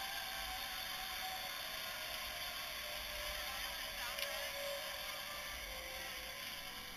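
Zip line trolley pulleys rolling along a steel cable: a steady whir with a faint whine, and one sharp click about four seconds in.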